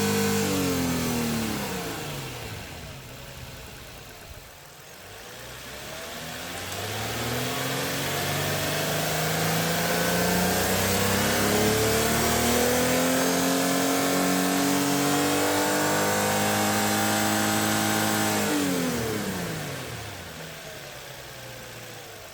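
Renault Samsung SM7's NeoVQ35 3.5-litre V6 being revved. It drops from a held speed to idle, then is raised gradually over a few seconds and held steady for about eight seconds before falling back to idle near the end.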